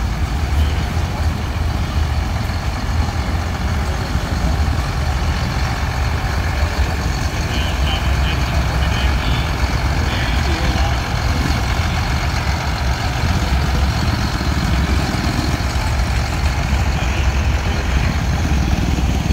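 Large Allis-Chalmers tractor's engine running at low speed as it drives slowly past close by: a steady, deep rumble.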